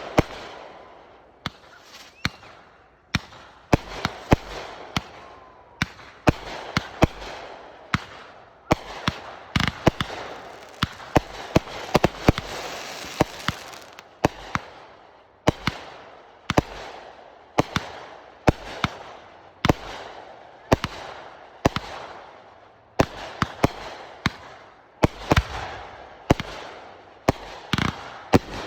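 Consumer fireworks going off in a long run of sharp bangs, roughly one or two a second, with crackling and fizzing between the reports.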